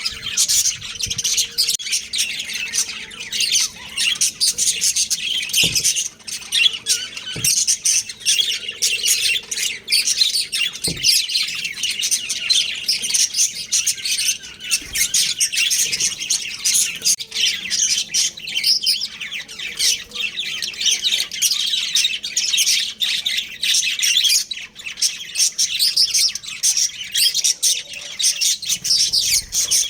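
Budgerigars chirping and chattering without pause in a dense run of overlapping high calls, with a few sharp clicks.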